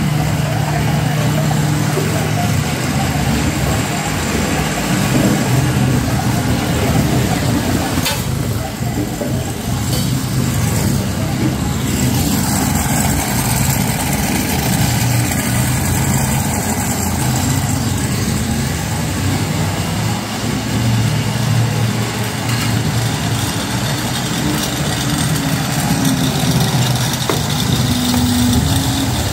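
Experimental noise performance: a loud, steady low drone with a rough, engine-like buzz and hiss above it, played through an amplifier from percussion objects, without distinct strikes.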